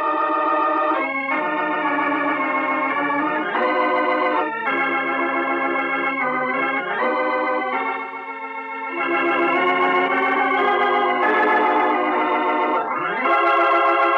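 Organ playing a radio programme's closing theme: sustained chords changing every second or two, with a quick upward slide near the end into a held final chord.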